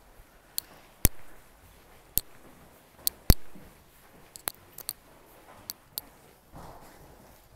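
A string of sharp clicks and knocks, roughly one a second. The loudest comes about three seconds in, and a short rush of noise follows near the end.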